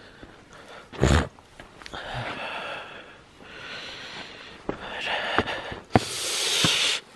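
Breathing and movement noise close to the microphone while walking, with a heavy thump about a second in, a few sharp clicks, and a loud rush of breath-like noise near the end.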